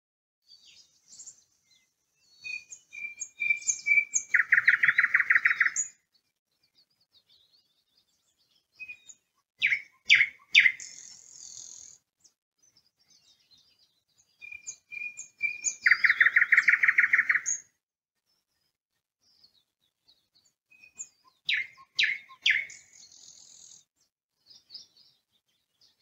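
Nightingale singing in separate phrases. Twice a run of slow whistled notes builds into a loud, rapid rattle. Between these come shorter phrases of sharp, falling notes.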